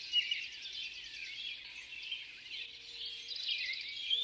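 Several wild birds chirping and singing at once: a steady, busy chorus of short high-pitched chirps and trills.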